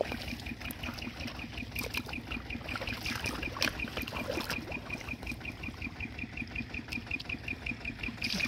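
Hands splashing and groping in shallow, muddy rice-paddy water, with scattered sharper splashes. Behind it a steady high chirp repeats about six times a second.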